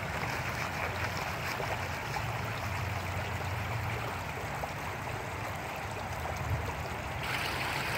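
A rain-swollen river flowing in a steady rush of water, which grows louder about seven seconds in.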